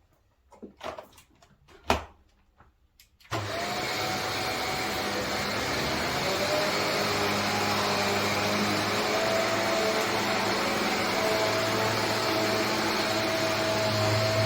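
A few clicks and knocks, then a Shark Stratos XL corded upright vacuum cleaner switches on about three seconds in and runs steadily, its motor humming low with a higher whine over a rush of air.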